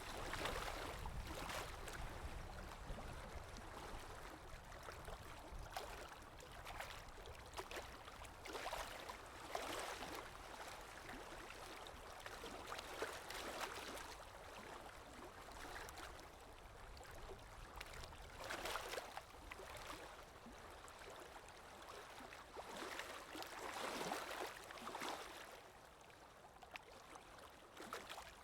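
Lake waves breaking and washing onto the shore, a steady rush that swells into a louder surge every few seconds.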